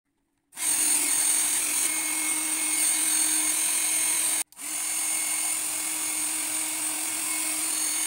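Philips SalonDry Compact hair dryer running: a steady rush of air with a low hum and a high whine from its fan motor. The sound drops out abruptly for a moment about halfway, then carries on.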